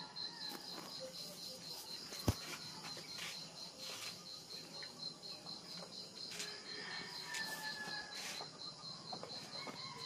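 A cricket chirping steadily, a high-pitched pulse about four times a second, with faint rustling and knocks of handling and one sharp click about two seconds in.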